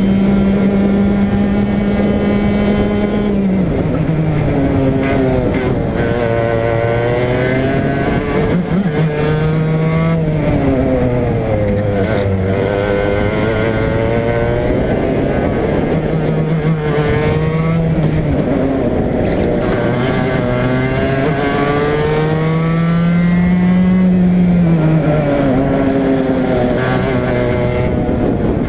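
Racing kart engine at full throttle on track, its pitch climbing on the straights and dropping sharply when lifting for corners, over and over, with a long climb near the end and a fall.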